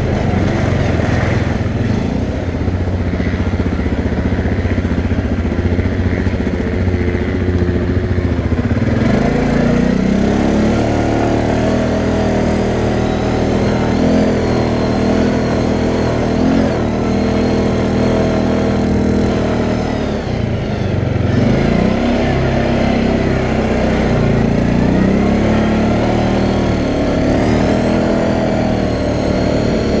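CFMoto 500A ATV's single-cylinder four-stroke engine running under throttle from the rider's seat, its pitch rising and falling as it revs. It climbs about a third of the way in, drops briefly about two-thirds in, then revs back up.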